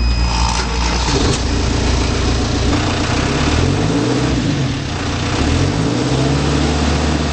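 2008 Volvo BL60 backhoe loader's diesel engine running, its speed rising twice, once about three and a half seconds in and again near six seconds.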